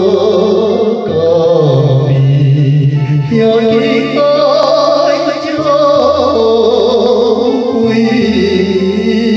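A Taiwanese Hokkien ballad: a voice sings long, wavering notes over an instrumental backing with a steady bass line.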